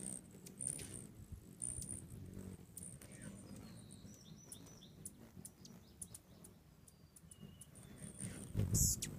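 Hummingbirds chasing around a feeder: many short, high, squeaky chip and chatter calls, over a low hum of wingbeats, with a louder buzzy burst near the end as a bird passes close.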